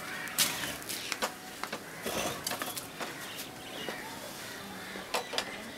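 Scattered clinks and knocks of bowls on a serving tray as it is carried and set down, with a pair of sharper knocks near the end.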